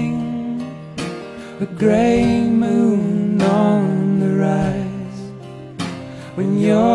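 Live folk-rock band music: acoustic guitar under a melody line of long-held, bending notes in phrases of a second or two, sung or played.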